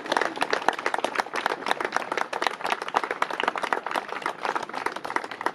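Crowd applauding, with many hands clapping densely and without a break.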